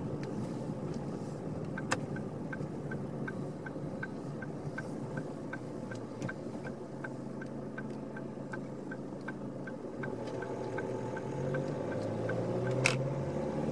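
Car's turn-signal indicator ticking about three times a second over the steady hum of the engine and tyres inside the cabin. The ticking starts about two seconds in and stops near the end of the turn, after which the engine note rises as the car picks up speed. A single sharp click comes near the end.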